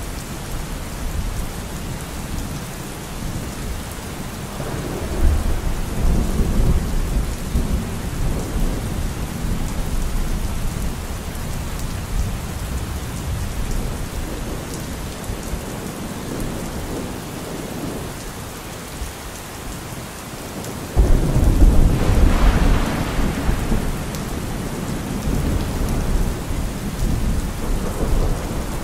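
Steady rain with rolling thunder. A low rumble of thunder swells about five seconds in, and a louder peal starts suddenly about three-quarters of the way through and rumbles on for several seconds.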